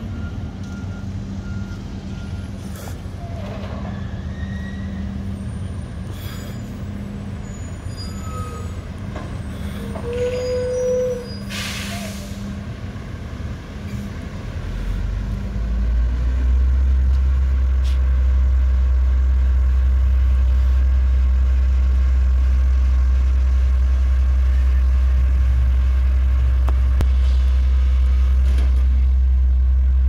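Mack front-loader garbage truck running, with an air-brake hiss lasting about a second roughly twelve seconds in. From about fifteen seconds in the truck's engine settles into a loud, steady low drone.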